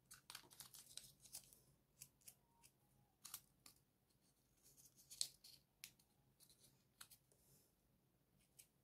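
Faint scattered rustles and small clicks of folded paper: 3D origami modules being handled and pressed together by hand.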